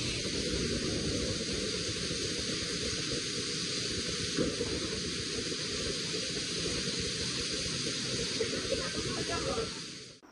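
Steady loud rushing hiss, like static or wind noise, that cuts off just before the end.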